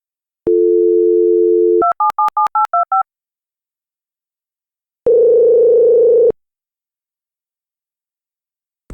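Telephone sound effects: a click, then a steady dial tone, then about seven quick touch-tone keypad beeps as a number is dialled. After a pause comes a single buzzy ringing tone of about a second, the ringback of a call that goes unanswered.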